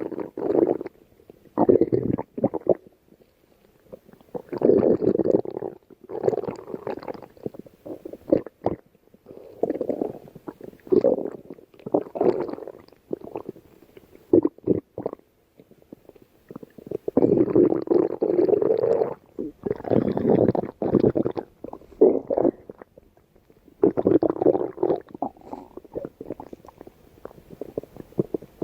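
Stomach growling: gurgling rumbles come in irregular bouts of a second or two, separated by short quiet gaps, with the longest run of rumbling a little past halfway.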